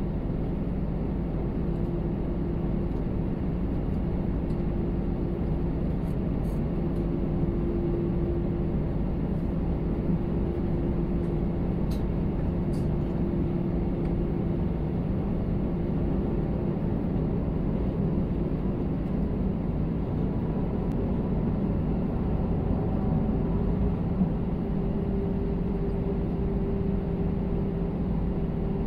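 Steady cabin noise inside an Airbus A320 taxiing, its jet engines running at low power with the rush of the cabin air. A low hum runs through it and steps slightly higher in pitch about four-fifths of the way in.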